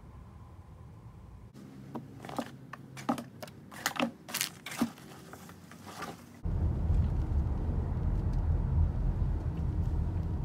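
Crinkling and sharp clicks of a shopping bag being handled, followed about six seconds in by a loud, steady low noise inside a car.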